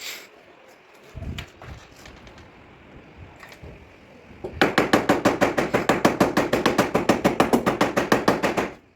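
Rapid, evenly spaced hammer blows on car body sheet metal, about nine a second for some four seconds, starting about four and a half seconds in. A single dull thud comes about a second in.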